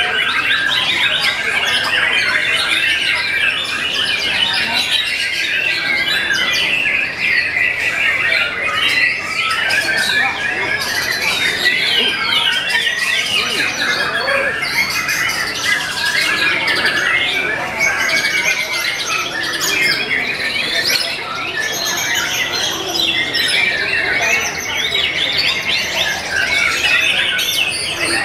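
White-rumped shamas (murai batu) singing, several at once: a dense, unbroken tangle of rapid, varied whistled phrases and trills.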